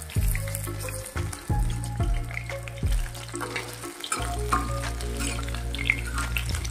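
Batter-coated chicken skin pakoras deep-frying in hot oil in a steel kadhai, crackling and sizzling, with a few knocks of a steel spatula against the pan as the pieces are turned.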